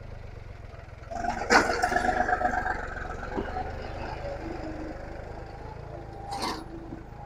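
John Deere 5060E turbo diesel tractor engine running steadily under load while pulling a disc harrow. From about one to three seconds in there is a louder stretch with a higher held tone and a sharp knock.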